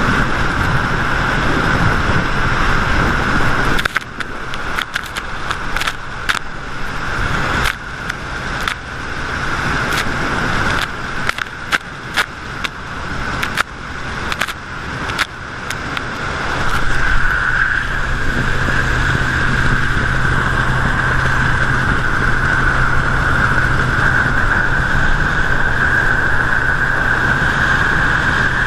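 Triton TR186 bass boat under way, its outboard motor running steadily under the rush of water and wind at a camera mounted low on the hull. From about four seconds in until about sixteen seconds, spray and chop slap against the camera in a string of sharp splashes that cut the sound in and out. After that the run is steady again and a little louder.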